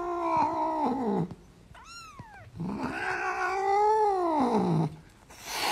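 Cat yowling: a long drawn-out call that falls away about a second in, a brief higher mew, then a second long yowl rising and then falling in pitch. A short breathy burst near the end.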